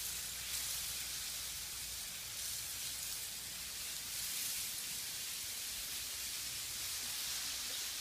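Needle ice (millions of thin ice shards from a thawing lake) churning and rolling over one another at the shore, a continuous high hiss that swells a few times.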